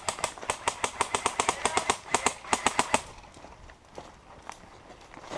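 Airsoft gun firing on full auto, a fast even rattle of about eight shots a second for about three seconds, then a few scattered single shots.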